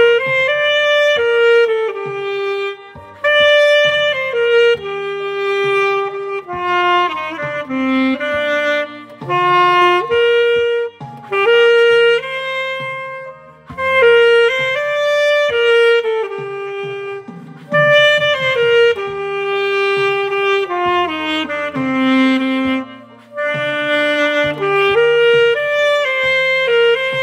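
Instrumental music: a solo wind instrument plays a slow melody of held notes over a backing track.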